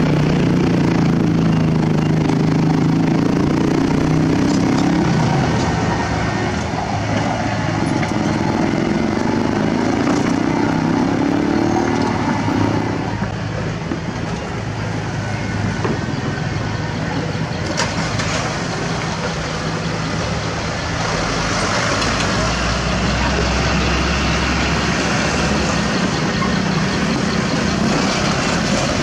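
A small Komatsu D21P crawler dozer's diesel engine running, its pitch rising and falling as it works. About halfway through, the sound changes to the steady running of a line of diesel dump trucks.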